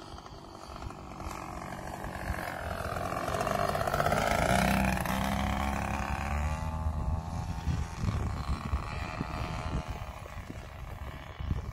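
Radio-controlled model aeroplane's engine flying past, growing louder for about four seconds and then dropping in pitch as it passes and fades away. Wind buffets the microphone throughout.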